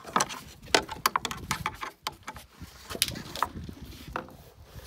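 Irregular sharp clicks and knocks of a metal lock clip being pushed and snapped into place in the bracket slot between two insulated foam-and-OSB wall blocks, locking the blocks together.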